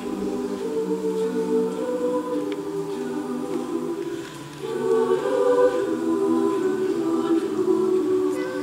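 Show choir singing long held chords in close harmony, in two phrases: a short dip about four seconds in, then the second phrase swells louder.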